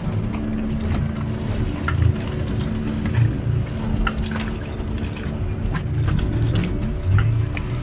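Sailboat's inboard engine running steadily at anchor, with water splashing and slapping against the hull in short sharp bursts.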